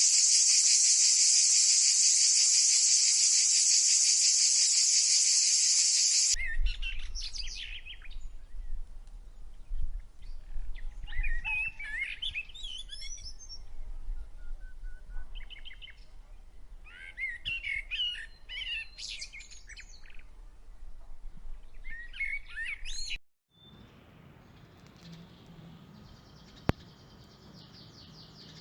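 Loud, steady high-pitched insect drone that cuts off suddenly about six seconds in. Then birds chirping in short runs of calls over a low steady hum for about seventeen seconds. Then a quieter stretch with a single sharp click.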